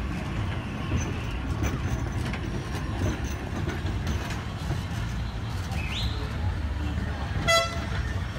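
Steady low rumble of a heritage Blackpool tram and street traffic, with a short, high-pitched horn toot about seven and a half seconds in.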